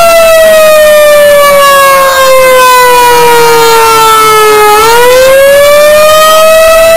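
Loud outdoor warning siren sounding a steady tone during its monthly test. Its pitch sags slowly for about five seconds, then climbs back up to the steady tone.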